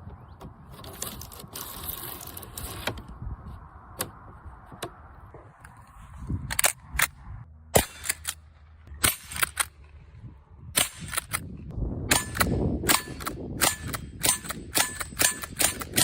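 A series of sharp shots from a small-calibre .22 pump-action rifle. They are scattered at first, then come quickly and evenly, about two or three a second, in the last few seconds.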